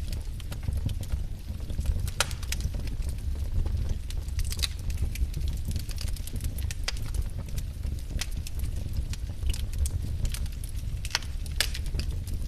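Wood fire burning: a steady low rumble with irregular sharp crackles and pops from the logs.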